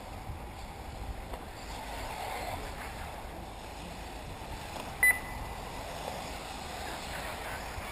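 1/8-scale electric RC off-road buggies racing, heard as a steady hiss of motors and tyres with outdoor noise. One short, loud, high beep sounds about five seconds in.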